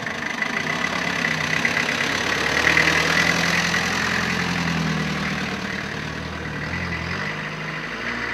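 Engine of a Citroën H van pulling away at low speed, getting louder about two to three seconds in, then falling away near the end as the van drives off.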